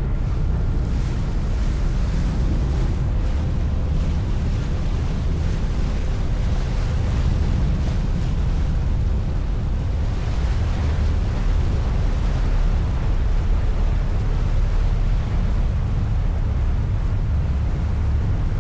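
Harbour ferry under way: a steady low rumble of engine and churning wake water, with wind buffeting the microphone.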